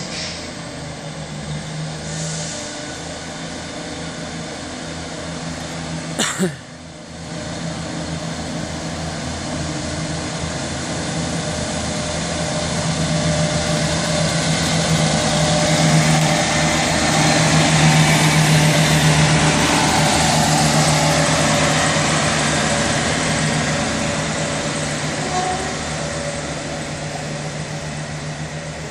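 Class 150 diesel multiple unit pulling away: its underfloor diesel engines run at a steady working note with wheel and rail noise. The sound grows louder as the train passes close by through the middle and then fades. One brief sharp crack about six seconds in.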